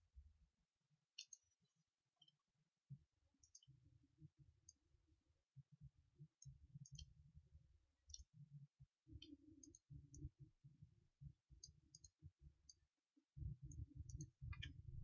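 Faint, irregular clicks, about fifteen scattered through, over low, patchy, muffled rumbling noise.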